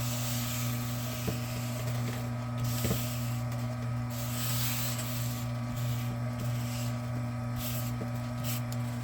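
Electric wire stripping machine's motor running steadily: a low, even hum with a hiss over it that swells and fades, and a few faint clicks.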